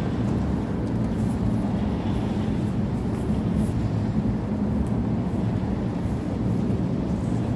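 Steady low drone with a faint machine hum from a self-service car wash's high-pressure wand and pump, spraying water on a minivan.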